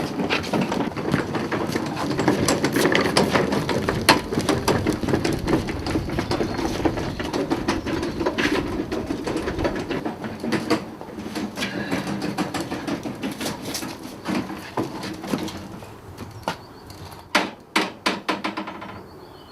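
A hand barrow loaded with heavy metal voltage-regulator units being wheeled along. It rattles and clatters continuously for about the first half. After that come scattered knocks and clunks, with several sharp knocks near the end.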